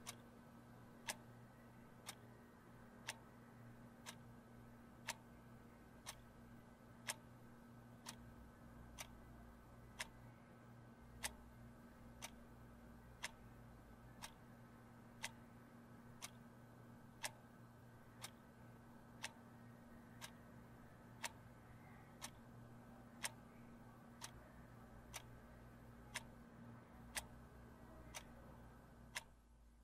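A clock ticking steadily, about one tick a second, over a faint low hum.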